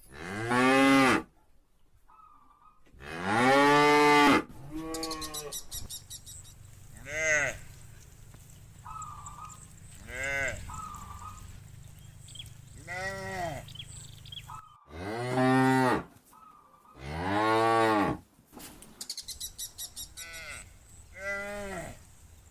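Cows mooing: four long, loud moos and about six shorter, quieter ones between them, each call rising and then falling in pitch.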